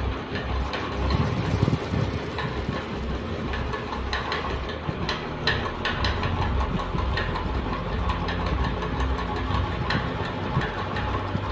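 Ceiling fan running: a steady mechanical rumble with scattered clicks and rattles.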